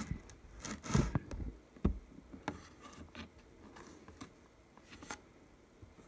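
Faint handling noises: a few small clicks and scrapes of a laptop-style RAM module being worked into its slot inside an iMac, mostly between one and two and a half seconds in, with one more click near the end.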